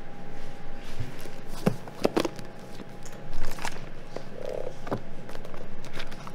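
Paperback books handled and set down on a stone countertop: a handful of light knocks and taps, a few close together about two seconds in, over a faint steady hum.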